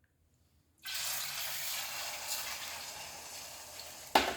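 Milk poured into hot desi ghee in a cooking pan, sizzling loudly and suddenly after a second of silence, then slowly dying down. A sharp knock comes near the end.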